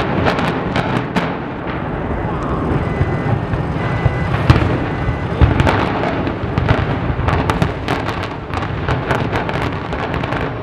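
Explosive demolition charges firing in an office tower implosion: many sharp cracks in quick, irregular succession over a low continuous rumble.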